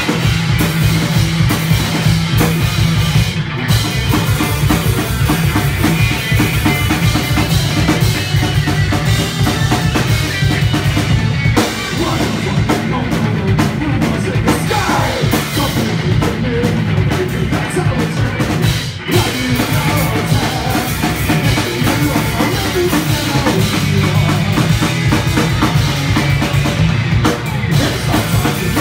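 Live punk rock band playing loud: distorted electric guitar, electric bass and drum kit, with a couple of brief stops about twelve and nineteen seconds in.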